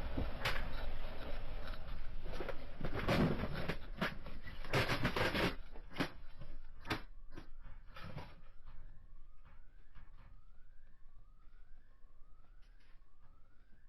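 Earthquake shaking a shop full of antiques: a loud rumble with objects rattling and crashing for the first five or six seconds, dying away to a few clinks. From about nine seconds in, an alarm siren sounds in rising sweeps, about one a second.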